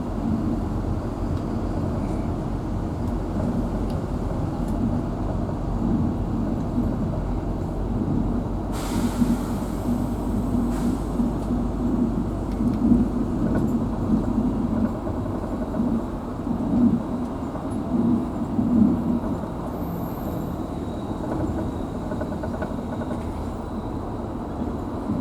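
A bus's engine and road noise heard from inside the cabin: a steady low rumble that swells now and then. A short hiss cuts in about nine seconds in.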